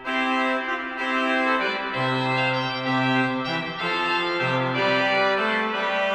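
Organ music: sustained chords, with the bass note moving to a new pitch every second or so.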